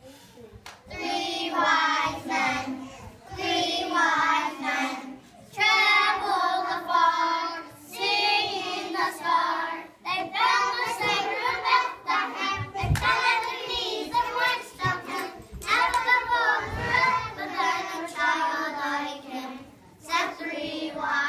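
A group of young children singing together, in phrases of about two seconds with short breaths between them.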